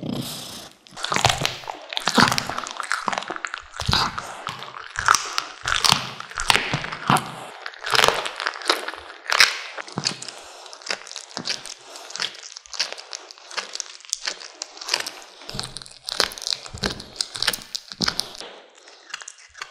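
A cat chewing raw duck leg, crunching and cracking through the meat and bone in quick, irregular bites, close to the microphone.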